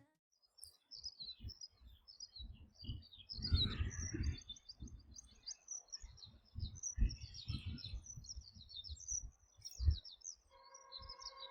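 Small birds chirping and twittering continuously in quick high notes, with irregular low gusts of wind buffeting the microphone. A steady pitched tone comes in near the end.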